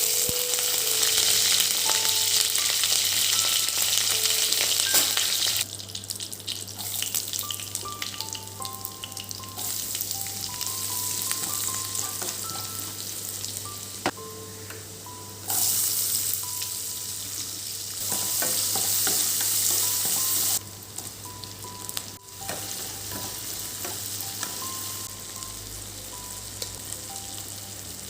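Food sizzling as it fries in a pan while being stirred. The hiss is loud for the first few seconds and again in a stretch past the middle, quieter in between. Soft background music plays under it.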